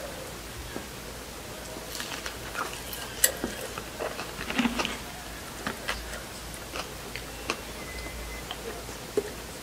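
Biting into and chewing a fried seaweed roll (gimmari twigim): irregular small crunches and crackles, thickest a couple of seconds in, then sparser. The fried batter is less crisp than expected.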